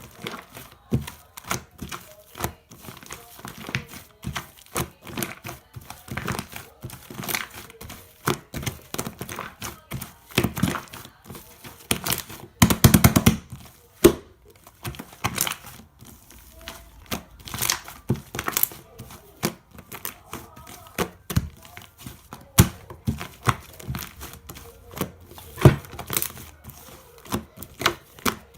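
Shaving-foam slime being squeezed and kneaded by hand, giving irregular crackling pops and squelches, with a denser run of loud pops about halfway through.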